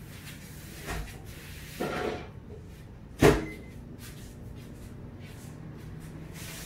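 Kitchen doors being handled off-camera: a light knock about a second in, a short clatter near two seconds, then one sharp loud bang a little after three seconds, like a cupboard or appliance door being shut.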